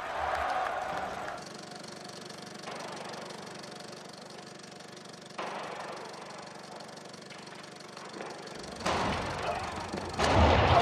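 A 35mm film projector running with a steady mechanical whir. Louder, busier sound comes in about nine seconds in and again near the end.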